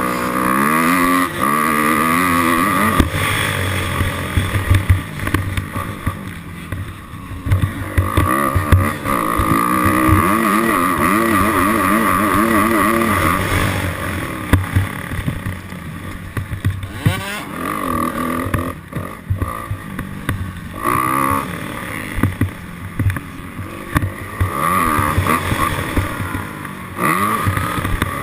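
Dirt bike engine revving up and down again and again, its pitch rising and falling with the throttle, over a steady rush of wind noise.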